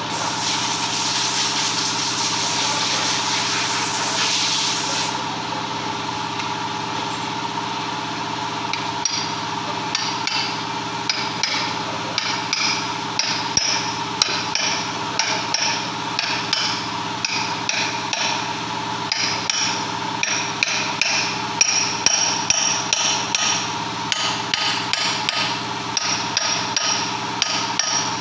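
Hammer striking metal during a lorry gearbox repair, fast repeated blows of about two to three a second with a ringing metallic note, starting about nine seconds in. For the first five seconds there is a loud hiss, and a steady mechanical hum runs underneath.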